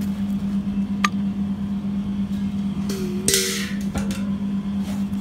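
Panasonic CU-PV24SKH air conditioner running with a steady low hum, just switched on while R410A refrigerant is being charged into it. There is a sharp click about a second in and a short hiss about three seconds in.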